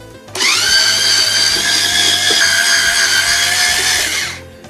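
Electric screwdriver spinning up and running steadily for about four seconds as it backs a screw out of the side of a mini stereo's metal case, its pitch rising quickly at the start, then holding level before it winds down.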